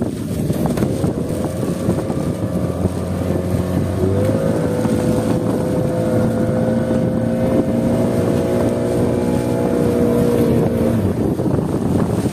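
Fishing boat's engine running steadily under heavy wind noise on the microphone; its note steps up a little about four seconds in and drops away near the end.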